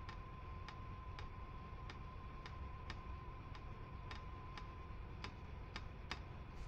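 Faint, regular ticking, about two ticks a second, over a faint steady high hum.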